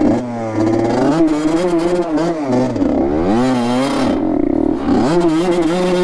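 Honda CR85 two-stroke dirt bike engine revving up and down as it is ridden, the revs dropping and climbing again about three seconds in and once more near the end.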